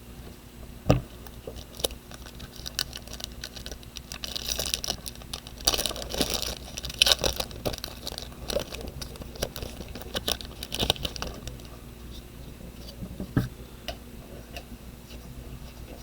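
Trading cards and their packaging being handled at a table: cards slid, flipped and tapped against each other in light clicks, with crinkly rustling in the middle stretch and again about eleven seconds in. There is a sharper tap about a second in.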